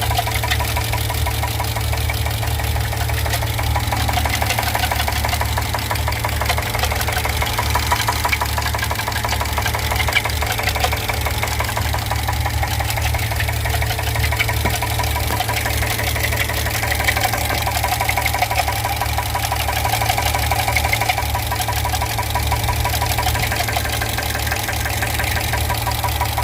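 2015 GMC Yukon's 6.2-litre V8 running steadily with a fast, even knock over the engine note: the engine knock the owner is recording.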